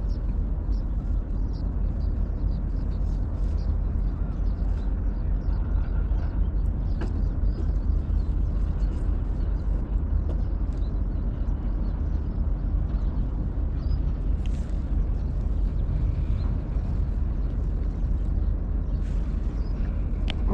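Steady low rumble of wind buffeting the microphone outdoors, with faint small ticks scattered high above it.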